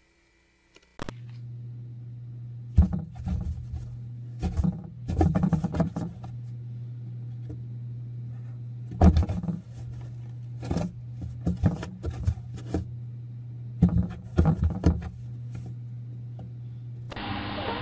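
Scratching, rustling and sharp knocks on a cardboard box as a cat paws at a string toy poking through a hole in it, over a steady low hum.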